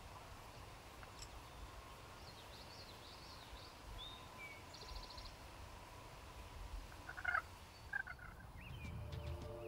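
Wild turkey gobblers calling: two short gobbles about half a second to a second apart near the end, over a faint outdoor hush with small songbird chirps and a brief trill earlier on.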